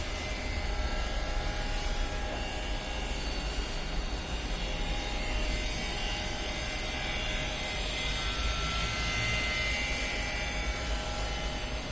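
Vitor Ciola Scriba 1325 CNC router running, a steady machine whine with a low rumble and thin tones that start and stop at changing pitches.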